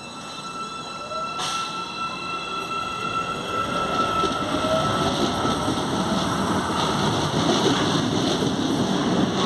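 Electric commuter train growing louder at the station, with a thin high wheel squeal that fades out about halfway through and a faint whine rising in pitch.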